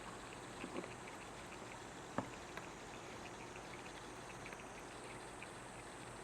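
Cat chewing food: small, irregular clicks and smacks with one sharper click about two seconds in.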